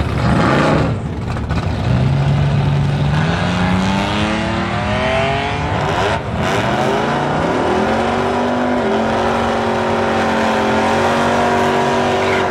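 Drag racing car launching and accelerating down the strip, its engine note climbing in pitch in steps through the gear changes. A loud burst of engine and tyre noise opens the run.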